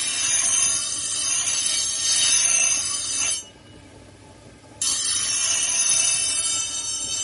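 Steel being ground against an abrasive wheel or disc: a steady, high-pitched hissing screech with a metallic ring. The piece is lifted off about three and a half seconds in and pressed back on a second and a half later.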